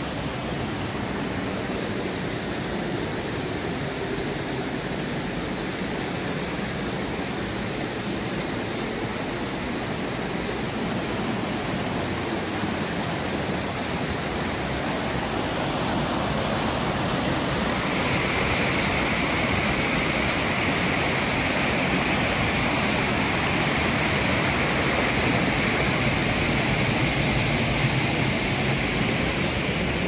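Fast, muddy mountain river rushing over rocks and small waterfalls, a steady sound of running water that gets louder a little over halfway through.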